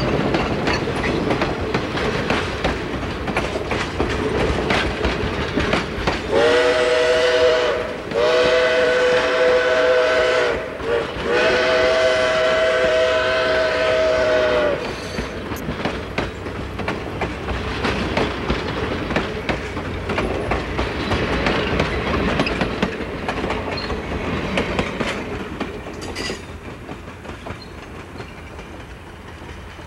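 Passenger cars rolling past on jointed rail, their wheels clicking over the rail joints. About six seconds in, the Baldwin 2-8-2 steam locomotive up ahead sounds its chime whistle in three blasts, the last the longest. The rolling then fades as the train moves away.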